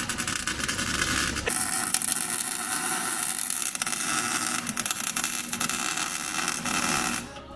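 Arc welder laying a weld on a differential, a steady crackling hiss that cuts off suddenly about seven seconds in.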